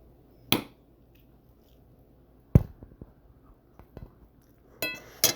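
A handful of separate knocks and clicks of a utensil against a dinner plate, the loudest about two and a half seconds in, ending with a brief ringing clink.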